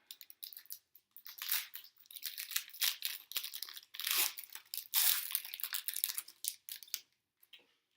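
Trading-card pack wrapper being torn open and crinkled: a run of crackling, rustling tears that stops about seven seconds in.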